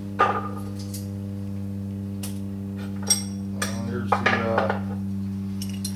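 A few light metallic clinks and taps of hand tools, a wrench and feeler gauge, being picked up and handled, over a steady low electrical hum.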